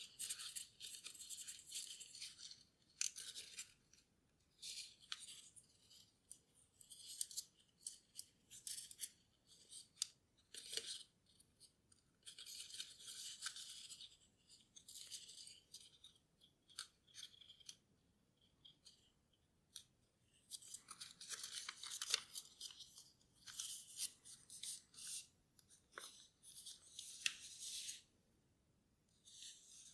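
Origami paper rustling and crinkling as fingers fold it and press its creases, in irregular bursts with short pauses.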